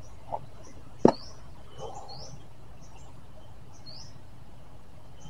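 Small birds chirping in short, repeated high calls, with two sharp clicks near the start, the louder about a second in, from handling the fishing lure and tackle.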